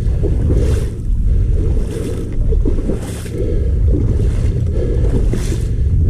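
Wading fast through shallow marsh water, a swishing splash of water every couple of seconds, over a heavy low rumble of wind on the microphone.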